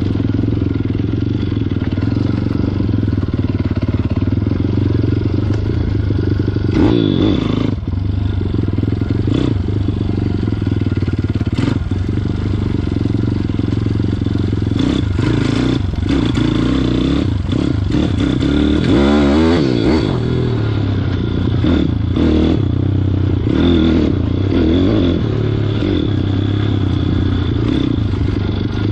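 Welsh Pit Bike 160's single-cylinder four-stroke engine, breathing through a bigger 28mm carburettor, running hard under a rider and revving up and down, with a clear rev rise about seven seconds in and another near twenty seconds. Sharp knocks and clatter from the bike going over rough ground come through now and then.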